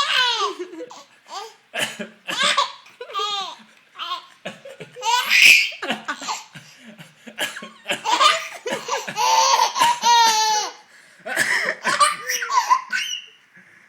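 A young child laughing hard in a string of high-pitched belly-laugh bouts with short breaths between them, the longest run coming in the second half.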